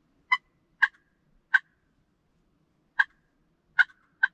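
Wooden push-button turkey call worked by hand, giving six short, sharp clucks at uneven spacing.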